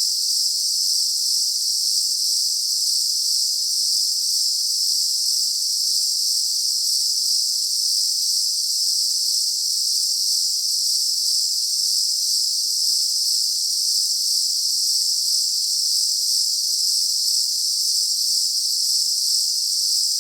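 A dense chorus of insects buzzing, a steady high-pitched shrill that holds at one level throughout, typical of cicadas or crickets on a hot day.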